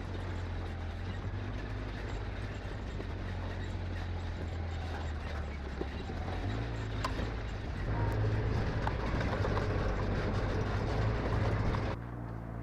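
ATV (quad) engine running under way, its pitch stepping up about six and a half seconds in and running louder from about eight seconds, easing off near the end.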